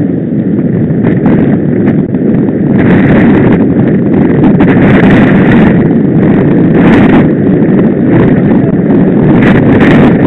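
Wind buffeting the microphone of a camera on a road bike riding at speed: a loud, steady rush that grows louder about three seconds in.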